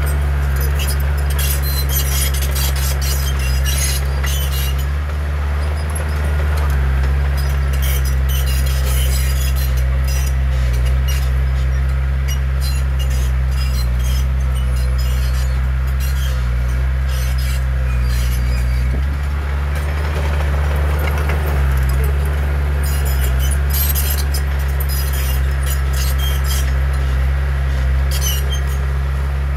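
Bulldozer's diesel engine running under load, with the steel tracks clanking and squeaking as it moves soil. The engine note changes about two-thirds of the way through.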